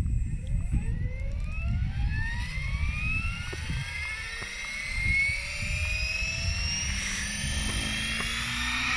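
Gaui X5 Formula electric RC helicopter spooling up on the ground: the motor and drivetrain whine rises steadily in pitch as the rotor speeds up, over a low rumble.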